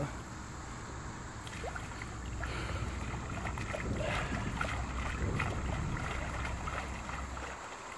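Light water splashing and lapping at the water's edge, with a low wind rumble on the microphone that drops away near the end.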